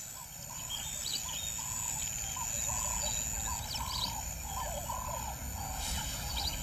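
A run of short animal calls, about two or three a second, each rising and falling in pitch, with scattered higher chirps over them.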